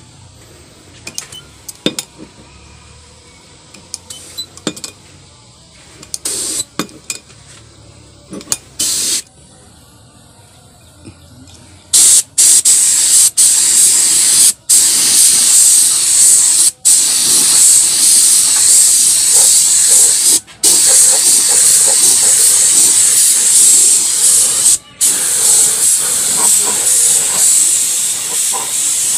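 Compressed-air paint spray gun spraying the final clear coat onto a sewing machine. A few short clicks and brief spurts come first. From about twelve seconds in it gives a loud, steady hiss, broken a few times by short stops.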